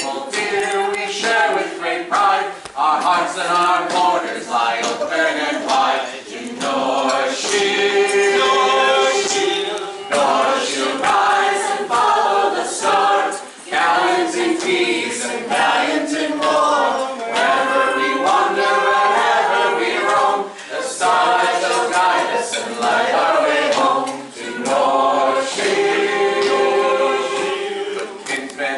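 Unaccompanied singing of a song: a woman's voice with a group of voices singing along, in continuous phrases with short breaks between them.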